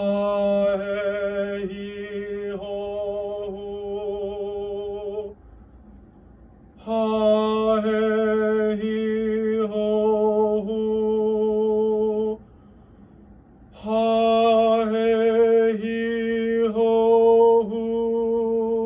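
A male voice singing a breath-support vowel exercise: three long notes of about five seconds each, all on one steady pitch, changing vowel within each note, with a short pause for breath between them.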